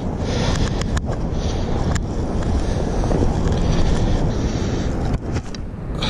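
Wind buffeting the camera's microphone as a steady low rumble, over the rush of shallow river water, with a few light clicks.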